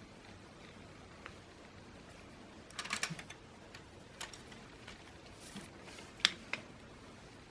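Scattered light clicks and small rattles of plastic Lego Technic parts being handled, with a short cluster of clicks about three seconds in and one sharp, louder click a little after six seconds.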